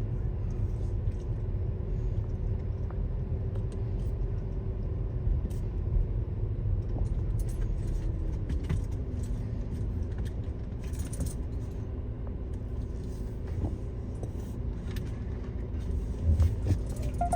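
Car driving slowly, heard from inside the cabin: a steady low engine and road rumble with a faint hum that drops in pitch about nine seconds in, and light scattered rattles and clicks.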